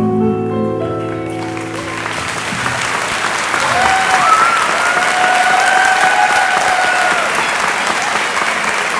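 A live band's final held chord fading out over the first couple of seconds as the audience starts applauding; steady clapping then fills the rest, with one long held cheer from a listener rising over it in the middle.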